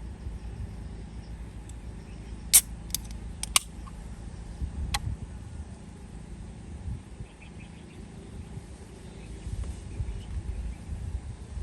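A handful of sharp clicks or knocks, two close together twice then one more, over a steady low rumble, with faint high chirping later.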